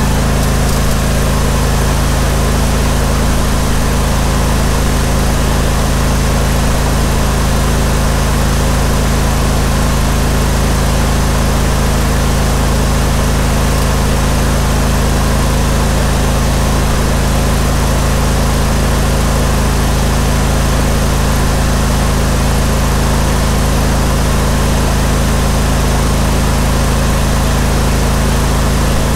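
Engine of a Steel Green stand-on spreader-sprayer, a Briggs & Stratton Vanguard 21 hp V-twin, running at a steady, even speed without changing pitch.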